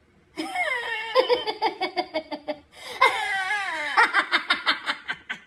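A person laughing in two bouts of quick, high-pitched pulses, the second starting about three seconds in.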